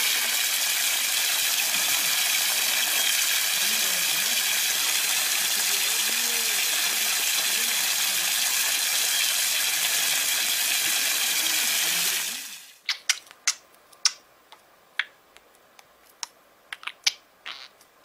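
Water gushing steadily from an outdoor tap and splashing onto the ground. About twelve seconds in it stops abruptly, and a series of sharp, separate clicks and taps follows against a quiet background.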